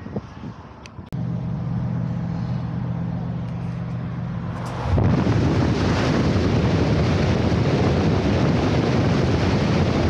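A vehicle engine running with a steady low hum from about a second in. About five seconds in it cuts to loud, steady road and engine noise of the camper van driving through a road tunnel.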